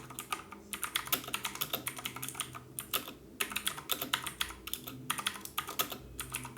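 Typing on a Redragon K551 mechanical keyboard with Outemu Blue switches, a Chinese equivalent of Cherry MX Blue: a fast run of sharp, clicky, tactile keystrokes broken by a few short pauses. The switch sound is clean, without the jangly rattle of cheap switches.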